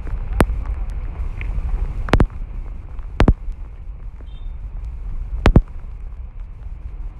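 Footsteps over wet streamside rocks: four sharp knocks one to two seconds apart over a steady low rumble.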